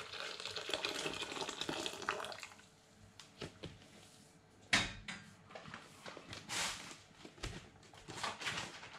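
Boiling water poured from a metal kettle into a rice cooker's inner pot, the stream thinning and stopping about two seconds in. Scattered light knocks and clicks follow, with one sharp knock near the middle.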